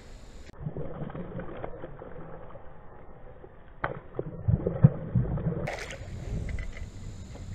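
A hooked bass thrashing and splashing at the water's surface close to a kayak. A few heavy thumps about halfway through are the loudest part, and a brief splash follows near the end.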